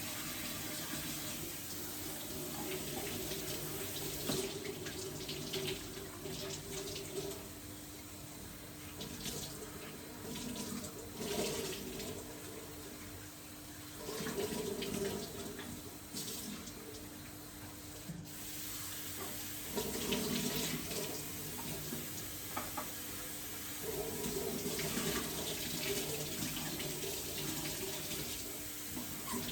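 Water running from a tap into a sink while things are washed under it, the flow rising and falling irregularly.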